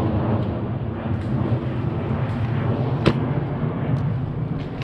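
Aircraft flying overhead: a steady low rumble. About three seconds in, a single sharp click, the shot of a Silverback SRS Covert spring-powered airsoft sniper rifle.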